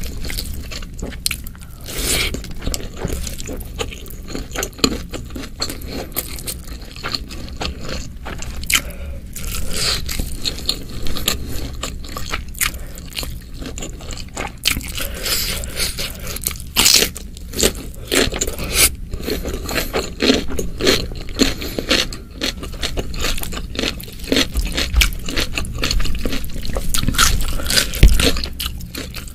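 Close-miked eating sounds: wet chewing and mouth clicks from a mouthful of rice and spicy stir-fried beef, along with fingers scraping and squishing rice and chilli sauce on the plate. A dense, irregular run of small clicks and crackles, a little louder in the second half.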